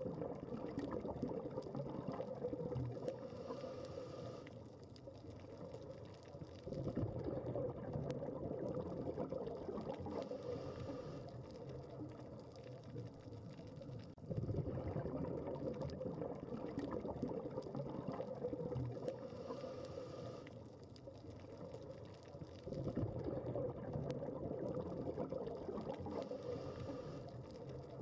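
Underwater scuba breathing. Surges of exhaled bubbles gurgle and fade roughly every eight seconds, and between them come short high hisses of inhalation through the regulator, four breaths in all.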